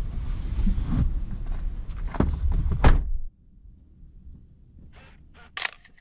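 Low rumble with knocks and two sharp thunks, which cuts off abruptly about three seconds in. After that only a faint hum remains, with a few short clicks near the end.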